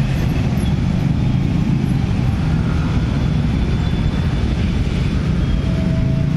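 Dense motorcycle traffic: many small motorcycle engines running together in a steady low drone as the crowd rides across a level crossing.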